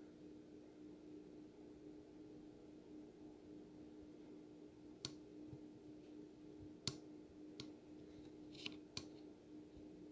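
Very high-pitched steady whine from the faulty 33 µH inductor marked 330 on a Vizio SB300 sound bar's main board. About five seconds in, a magnetic screwdriver tip clicks onto the inductor; the whine gets louder, dips slightly in pitch and wavers, with several light metal clicks as the tip shifts on the coil.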